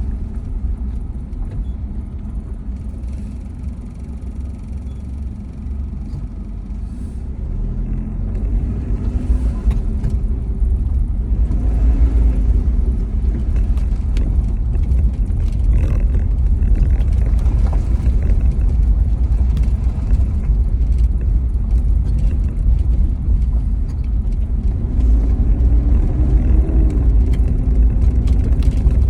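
Car driving, heard from inside the cabin: a steady low road and engine rumble. The engine note rises and falls about ten seconds in and again near the end.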